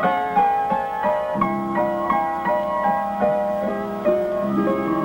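Solo piano playing, a series of notes and chords, an instrumental interlude leading into a song.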